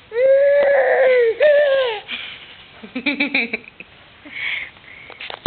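Toddler making loud, high-pitched vocal noises: two drawn-out calls in the first two seconds, then a quick rattling run of short pulses about three seconds in and a brief call after it. A sharp click comes at the very end.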